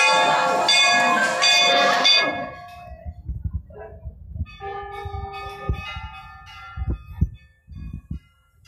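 A metal bell struck repeatedly, a clang every half second or so, each strike ringing with many overtones; the strikes stop about two seconds in. Fainter ringing tones linger after, with low thumps.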